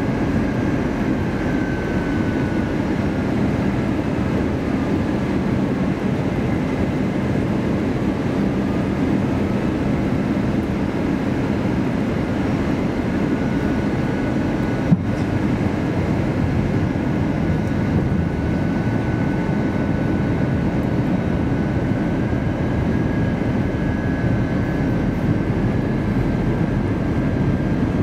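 Steady cabin noise inside an Airbus A321-200 airliner on descent: the drone of its jet engines and the rushing air, with faint whining tones that drift slowly in pitch. A single sharp click about halfway through.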